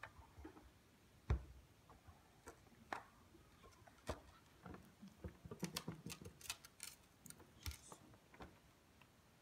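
A large ring-bound album being handled by hand: a dull thump a little over a second in, scattered light taps, then a crackling rustle of stiff card as the cover is turned over, after the middle.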